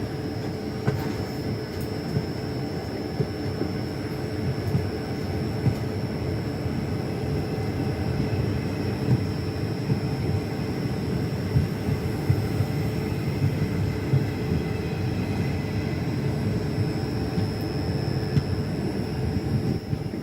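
Passenger train running along the track: a steady rumble of wheels on rail, with occasional short clicks and knocks.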